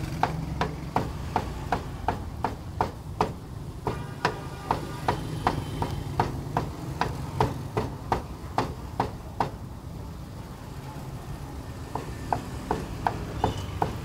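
Heavy cleaver chopping cooked meat on a thick wooden chopping block: sharp, even knocks about two to three a second, pausing for a couple of seconds near the end while the meat is gathered up, then going on again. A steady low hum runs underneath.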